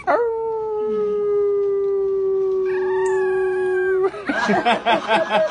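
A long, steady howl held for about four seconds, with a second, higher howl joining near its end, then quick bursts of laughter.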